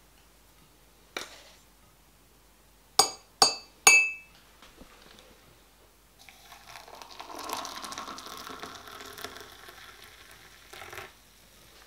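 Three sharp clinks with a short ring, about three to four seconds in. Then water is poured from a kettle into a ceramic mug for about five seconds.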